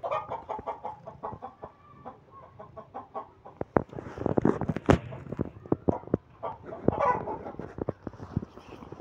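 Short, repeated animal calls near the start and again about seven seconds in, among many sharp clicks and knocks of a hand and a cat's fur rubbing against the phone.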